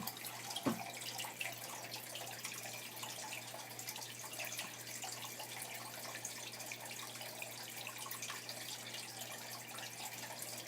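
Steady water-like trickling with many small ticks throughout, and one sharp click just under a second in.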